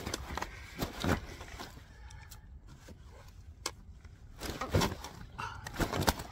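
Irregular knocks and scrapes of a freshly landed mirror carp flapping on an unhooking mat while being handled, in two spells, one at the start and one from about four and a half seconds in.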